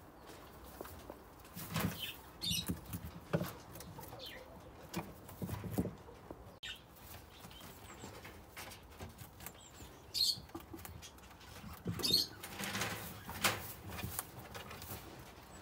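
Rustling of hay and soft patter as a young rabbit moves about in its hutch bedding, in irregular short bursts, with a few short high chirps in the background.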